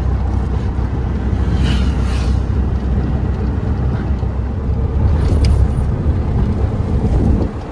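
Tata Magic passenger van driving, heard from inside the cabin: a steady low engine drone with road noise.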